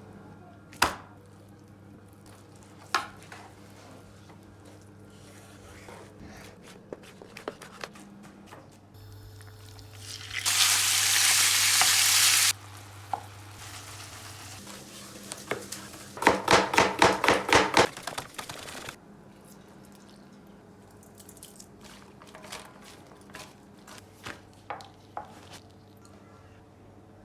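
Kitchen cooking sounds: scattered utensil clicks and taps, about two seconds of loud sizzling near the middle that cuts off suddenly, then a fast run of about nine sharp taps, over a faint steady low hum.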